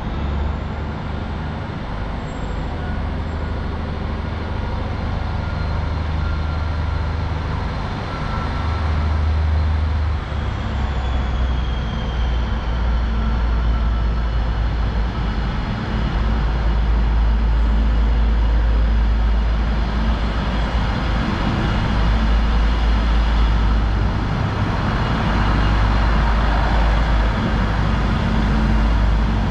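Train running: a steady low rumble with faint high whines, one of which slides down in pitch about ten seconds in.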